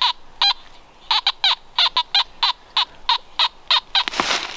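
Fisher F19 metal detector giving two short electronic beeps as it is passed over a dug target that reads high. A quick, even run of about ten short chirps follows, each falling in pitch, and a brief rustle comes near the end.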